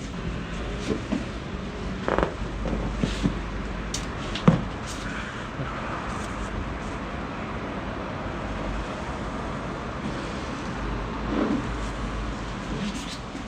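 Scattered clicks and knocks from a chiropractic spinal adjustment over a steady background hum, with one sharp crack about four and a half seconds in.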